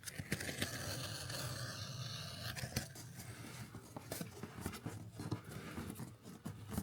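Rustling and scraping with scattered light knocks.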